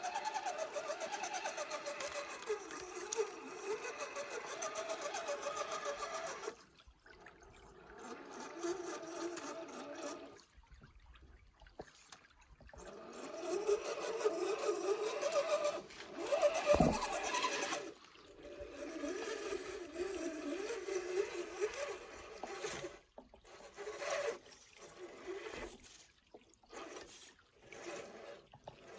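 Electric motor and gears of an RC rock crawler whining, the pitch wavering up and down with the throttle. It stops and starts several times, with short pauses and a quick rev near the middle.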